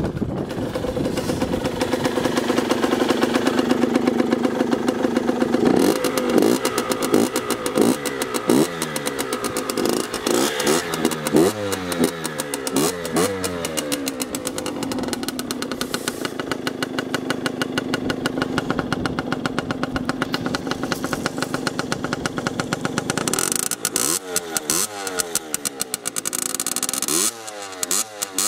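Derbi Senda R X-Race 50cc two-stroke engine running. It idles steadily, is blipped up and down in a run of quick revs from about six seconds in, settles back to idle, then is revved again near the end. It breathes through a derestricted stock exhaust with a modified baffle and a drilled airbox, which the owner finds gives it a good sound.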